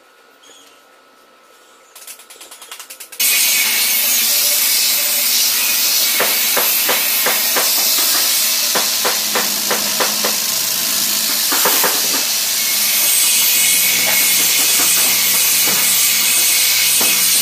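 Handheld electric disc sander running and sanding a wood slab: a steady, loud high hiss that starts abruptly about three seconds in, with scattered scraping knocks as the pad works over the wood.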